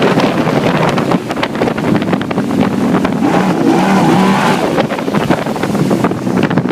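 Bullet speedboat's engine running at speed, with wind buffeting the microphone.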